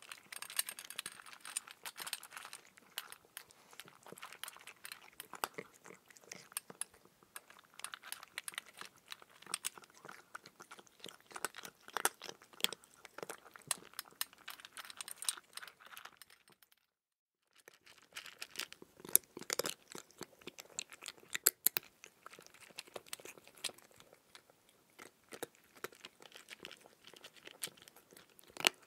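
Close-up chewing of raw cucumber: irregular wet crunching and crackling bites. The sound drops out for about a second a little past halfway, then resumes with a few sharper cracks.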